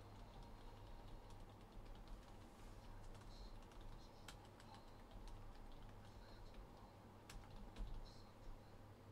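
Faint, irregular clicks of typing on a computer keyboard.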